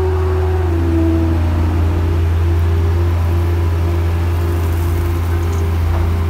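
Excavator engine and hydraulics heard from inside the cab while the machine swings. There is a loud, steady low drone with a higher whine that drops in pitch about a second in.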